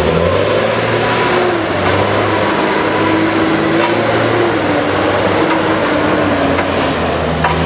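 Diesel engine of an articulated forestry skidder running under load as the machine drives through deep mud, its note wavering slightly up and down.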